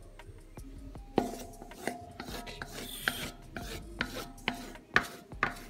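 A spatula scraping cake batter out of a bowl into round metal cake tins: a rasping scrape broken by a series of sharp taps and knocks, the loudest about five seconds in.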